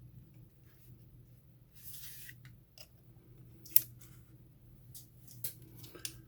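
Packaging being handled as a portable tire inflator is unwrapped: a short crinkly rustle about two seconds in, then a few sharp clicks and ticks, the loudest about midway, over a faint steady hum.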